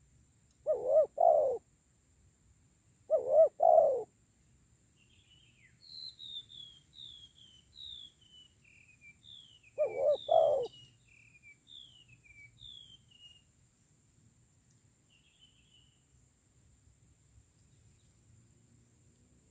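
Spotted doves cooing in three short phrases of two or three notes each, about a second in, near 3 s and near 10 s. Between them a small bird gives a fainter, quicker run of high, falling chirps.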